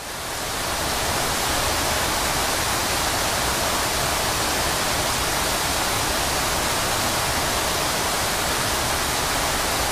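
Steady rush of a waterfall heard from close beneath the falling water, fading in over the first second.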